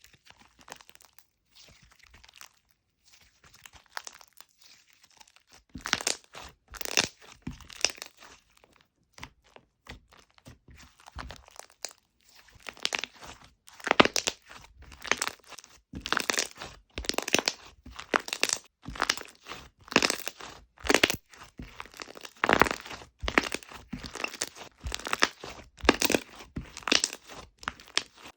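Fluffy "Dalgona Cocoa" slime being squeezed, stretched and folded by hand, giving repeated crunchy, crackling pops. Faint for the first few seconds, then louder, coming about one or two a second.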